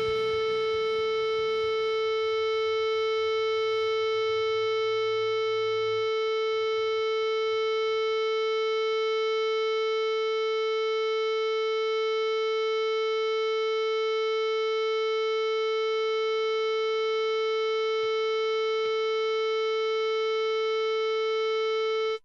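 One long, unchanging note, rich in overtones, held as the closing sound of a rock song, while lower notes die away in the first few seconds. It stops abruptly near the end.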